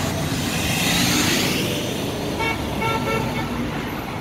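Street traffic: a vehicle passes close by, then a vehicle horn gives two short toots about two and a half seconds in.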